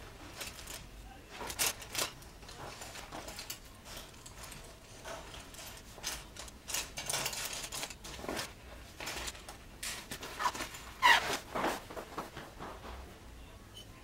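Paintbrushes and painting tools clicking and rattling against each other as they are handled and packed into a fabric brush pouch, with rustling of the cloth; the pouch is zipped shut.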